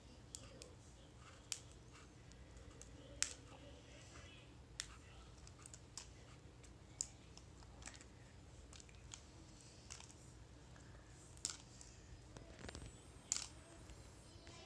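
Faint, scattered sharp clicks and crackles, roughly one a second and irregular, from hands working at plastic toy packaging to open it, with a louder click a few seconds in and another cluster near the end.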